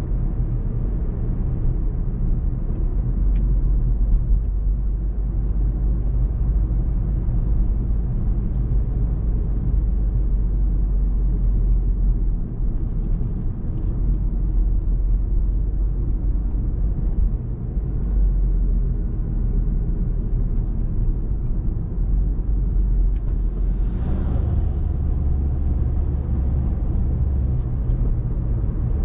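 Car driving on a country road: a steady low engine and road rumble with a few small clicks. About 24 seconds in, a brief rushing sound swells and the engine note steps up.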